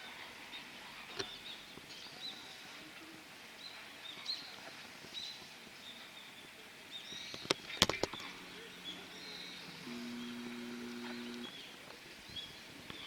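Small birds chirping: many short, high chirps scattered throughout. About eight seconds in, a quick cluster of sharp clicks is the loudest sound, followed by a low steady hum for about three seconds.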